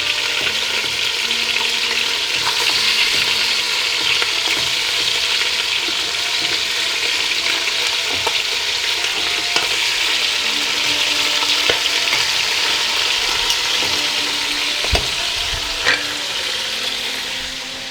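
Dark-meat chicken pieces frying in hot oil in a pan: a steady sizzle, with small clicks from the pieces being turned and two knocks near the end.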